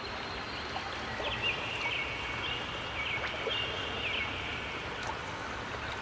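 Garden fountain water splashing steadily into its basin, with a small bird chirping repeatedly over it from about one to four seconds in.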